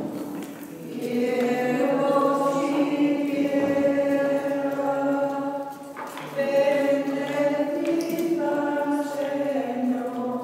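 Congregation singing a slow hymn together in long held notes, in two phrases with a short break for breath about six seconds in.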